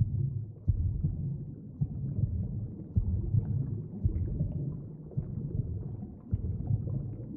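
Deep underwater-style ambience: a low rumble with soft thuds at irregular intervals, roughly once a second.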